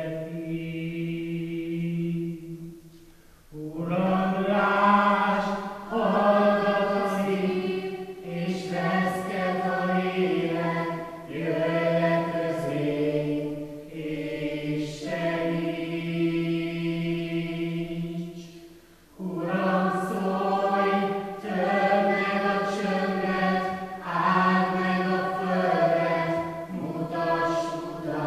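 A mixed stage chorus of young men and women singing a slow song together in long held notes, phrase by phrase, with two short breaks for breath about three seconds in and near eighteen seconds.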